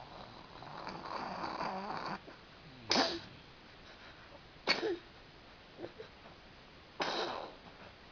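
A father and son snoring in their sleep: a drawn-out, wavering snore in the first two seconds, then three short, sharp snorts about two seconds apart, the first the loudest.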